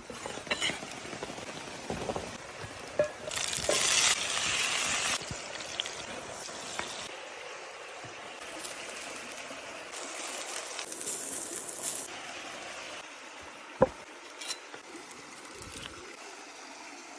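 Food sizzling over a cooking fire, a steady hiss with a few clinks and taps of utensils; a louder rush comes about four seconds in, and a sharp tap near the end.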